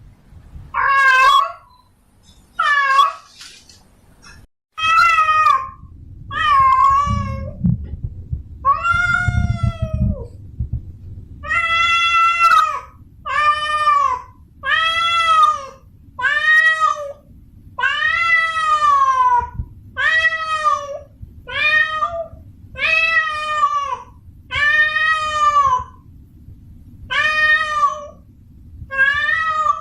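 A female cat in heat yowling to call a male: a long run of drawn-out calls, one about every second and a half, each rising and then falling in pitch.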